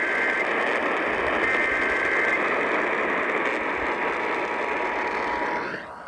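AM radio hissing with heavy static. Through it come two short warbling Emergency Alert System data bursts in the first two seconds, the SAME header of an incoming alert, and about four seconds in the steady two-note EAS attention tone begins faintly under the static.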